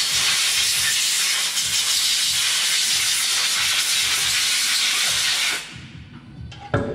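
Compressed-air blow gun blasting into a lathe chuck: a loud, steady hiss that cuts off about five and a half seconds in, followed by a sharp click near the end.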